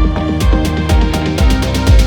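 Background music: an upbeat electronic track with a steady kick-drum beat and a repeating synth melody.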